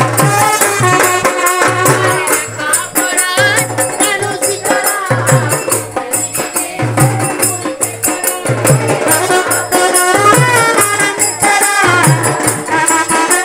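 Bengali folk music for a Bhadu song: a steady, repeating drum beat under dense jingling percussion and a wavering melody line.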